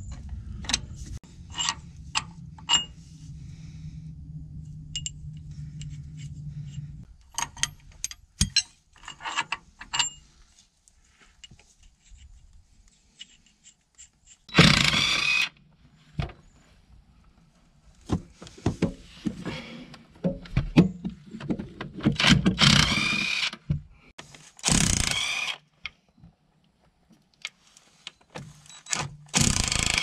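Metal clinks and clicks of hand wrenches on bolts under a backhoe, over a low steady hum at first. Later come four loud bursts of about a second each from a cordless impact wrench hammering at bolts.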